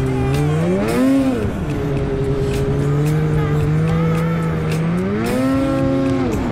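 Polaris two-stroke snowmobile engine running and revving up twice, the pitch climbing and falling back each time: briefly about a second in, and again about five seconds in, held for a moment before dropping near the end.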